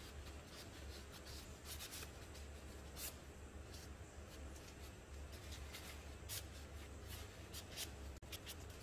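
Cloth rubbing and rustling as gloved hands wipe down a knife blade and its handle, with scattered light clicks and taps, over a low steady hum.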